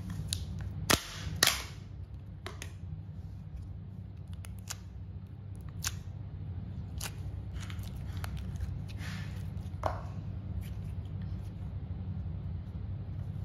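Green slime handled in a small plastic tub: a couple of sharp clicks about a second in as the tub is worked open, then scattered pops and clicks as fingers poke into and squeeze the slime. A steady low hum runs underneath.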